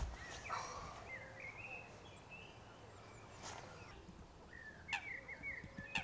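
Faint outdoor ambience with small birds calling in short warbling chirps, twice, and a few sharp clicks near the end.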